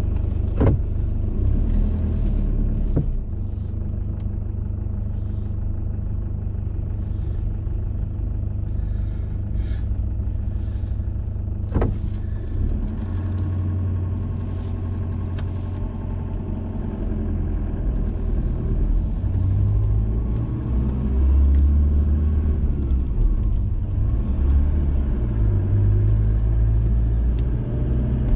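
Car engine and road rumble heard from inside the cabin as the car moves off and drives, a steady low rumble that grows heavier in the second half, with a few sharp knocks.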